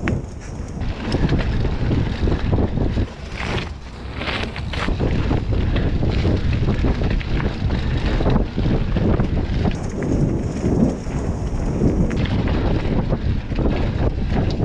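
Wind buffeting an action camera's microphone as a mountain bike descends a dirt trail, with the tyres rolling over dirt and leaves. Frequent short knocks and rattles come from the bike over bumps.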